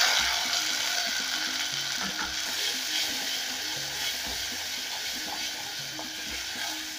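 Diced tomatoes sizzling in hot oil in an aluminium pot, the sizzle slowly dying down as they are stirred with a wooden spoon, with a few short scrapes of the spoon against the pot.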